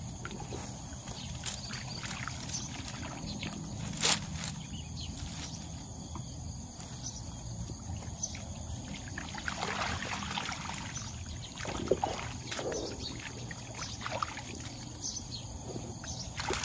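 Water splashing and sloshing as hands work a fish trap in shallow paddy water, heaviest from about nine to thirteen seconds in, over steady high insect chirring; a sharp click about four seconds in.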